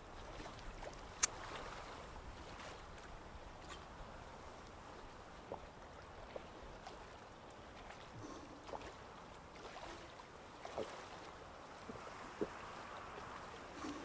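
Quiet outdoor ambience, a steady soft hiss like running water or wind, with a sharp click about a second in and scattered soft knocks and swallowing sounds as a man drinks from a metal bottle.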